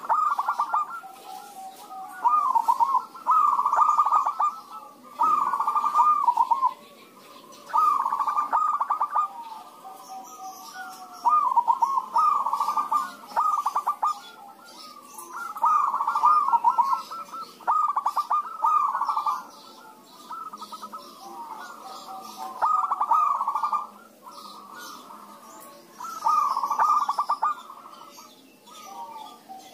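Zebra doves (perkutut) cooing back and forth, a string of staccato coo phrases each about a second long, one after another every two seconds or so.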